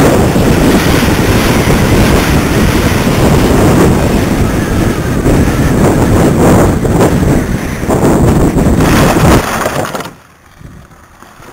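Wind rushing loudly over a camera mounted on a Doppelraab RC glider in flight, a steady rush of airflow noise. About nine and a half seconds in it dies away sharply as the glider touches down in grass and stops.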